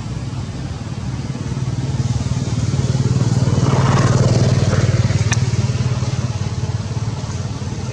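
A passing motor vehicle's engine, a low steady hum that swells to its loudest about four seconds in and then fades away. A single sharp click sounds about five seconds in.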